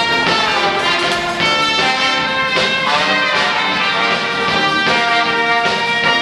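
Busking band of saxophones, tuba and drum kit playing a tune together.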